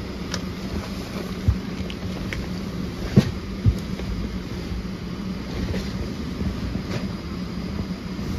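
Steady hum of a parked Boeing 737-700's cabin air system, a constant low drone, with a few short knocks and thumps, the loudest about three seconds in.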